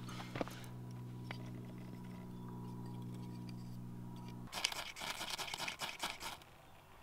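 A steady low hum stops abruptly about four and a half seconds in. Then a fire steel (ferro rod) is scraped hard several times in quick succession to throw sparks.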